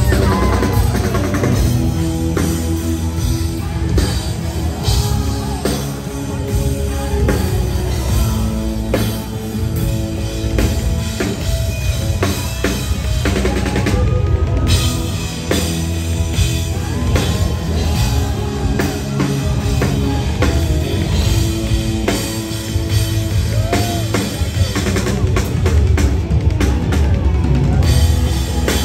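Live soft-rock band playing a song at full volume: drum kit, electric guitar and piano under a male lead singer.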